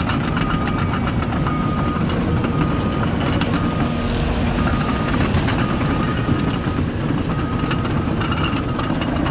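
A steady low rumble of vehicle and heavy-machine engines with a rattle running through it, and a backup alarm beeping about once a second.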